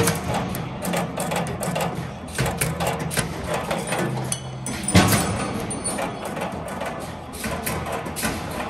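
CNC wire bending machine running: a steady low motor hum with frequent sharp clicks and clacks from the feed and bending mechanism, and heavier knocks at the start and about five seconds in.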